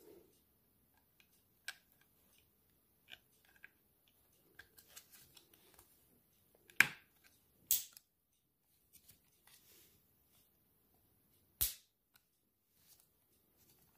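Plastic clicks and snaps from the battery cover of an automatic foaming soap dispenser being fitted over its batteries and pressed into place. Small clicks come first, then two sharp snaps close together about halfway through and another a few seconds later.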